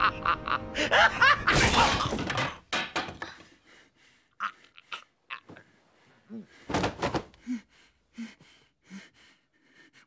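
A wooden bench smashed down on a man in a staged film fight: a loud crash about two seconds in over tense music. Scattered knocks follow, with a heavy thud near seven seconds as he goes down.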